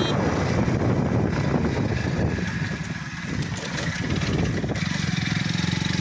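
An engine running steadily with a fast, even throb.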